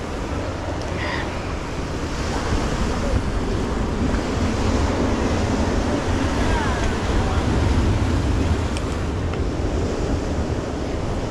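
Sea surf washing onto the beach, with wind rumbling on the microphone; the wash swells a little louder midway.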